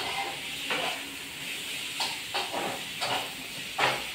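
Food sizzling in a pan on a kitchen stove, a steady hiss, with a few scattered knocks and clinks of utensils and handling.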